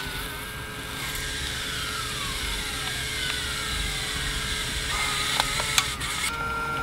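Fujifilm Instax Mini Link smartphone printer's mechanism whirring as it prints and feeds the instant film sheet out of its top, with two sharp clicks near the end.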